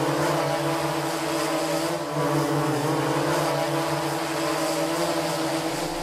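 Quadcopter drone's propellers humming steadily, a stack of even tones that waver slightly in pitch.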